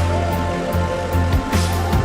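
Background music with a steady beat: a heavy bass line and regular drum hits.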